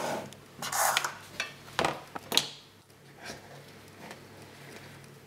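A metal spoon scraping and knocking against a metal muffin tin as chocolate cake mixture is spooned into paper cases: a few sharp clinks and scrapes in the first two and a half seconds, then only a low steady hum.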